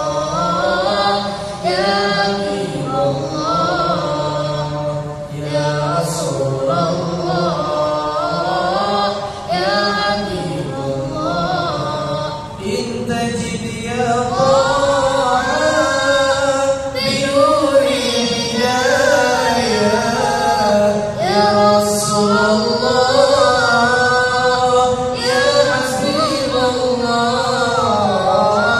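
A young boy's solo voice singing an unaccompanied, melismatic chant into a handheld microphone, in long ornamented phrases with short pauses for breath.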